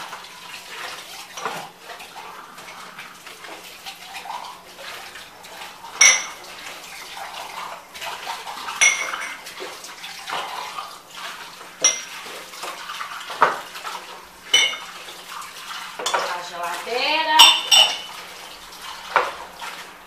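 Dishes being washed by hand in a stainless-steel sink: glass plates, ceramic cups and cutlery knocking and clinking together. Every few seconds a sharp, ringing clink stands out, the loudest near the end.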